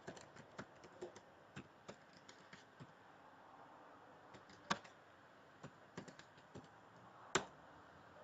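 Typing on a computer keyboard: a quick run of key taps, then a few separate presses, two of them louder, near the middle and near the end.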